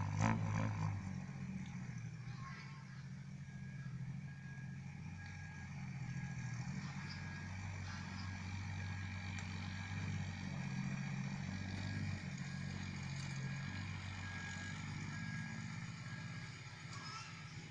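Diesel engine of a loaded six-wheel dump truck running as it drives slowly over a dirt site: a steady low drone whose pitch shifts a few times with the throttle. A brief loud burst comes right at the start.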